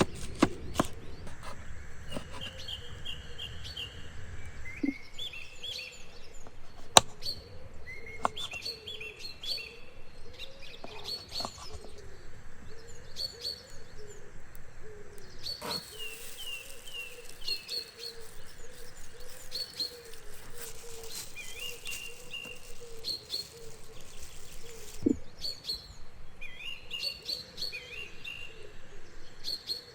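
Wild birds singing in a forest: many short chirps and trills, one after another. A few sharp clicks or knocks are scattered through, the loudest about seven seconds in.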